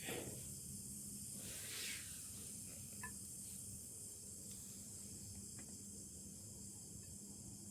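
Faint forest ambience: insects keep up a steady high hiss over a low, steady machine drone from a distant palm-oil mill.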